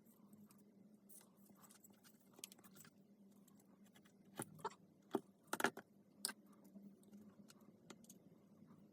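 A few light clicks and taps of small parts being handled, bunched together about four to six seconds in, over a faint steady hum.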